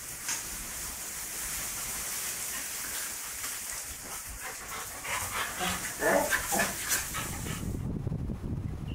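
A dog giving a quick run of short barks about five to seven seconds in, over a steady hiss. Near the end the hiss gives way to wind rumbling on the microphone.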